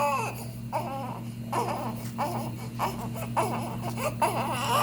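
Infant crying and fussing in short bursts, with noisy in-breaths between the cries: the inspiratory stridor of congenital laryngomalacia.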